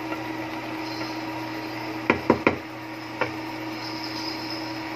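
Cooking spatula tapped against the rim of a metal pot: three quick knocks about two seconds in, then one more a second later, over a steady low hum.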